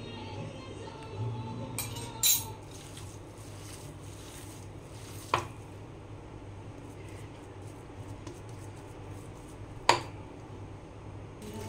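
Hands mixing minced meat in a glass bowl, with three sharp clinks of metal against the glass about two, five and ten seconds in.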